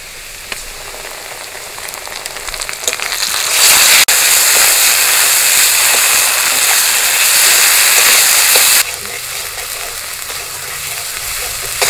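Ground spice paste frying in hot oil in a wok with onions and green chillies, stirred with a spatula. The sizzle swells about three seconds in, stays loud for about five seconds, then drops suddenly to a softer frying.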